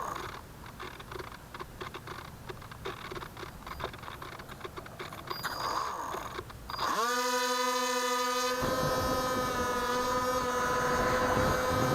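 Firebird Stratos RC plane's electric motor and propeller spinning up about seven seconds in to a steady whine, heard from a camera on the plane, with wind rushing past from about a second later. Before that, faint clicks and rustling from the camera being handled.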